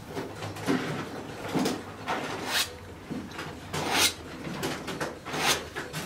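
Bristle brush working oil paint on a stretched canvas: a series of short scratchy brush strokes, about one a second.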